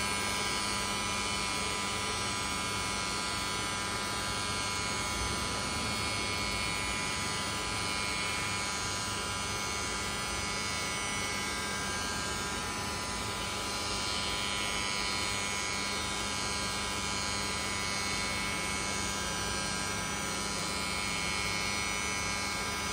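CNC router spindle running at high speed while its cutter mills a plastic sheet: a steady whine of several fixed tones over the rushing noise of the cut.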